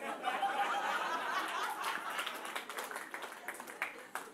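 A comedy-club audience laughing and clapping in response to a punchline. The laughter is strongest at first, and the scattered claps thin out and fade near the end.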